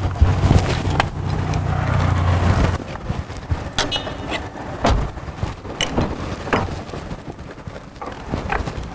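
A car engine running steadily for the first few seconds, then a series of sharp clicks and knocks.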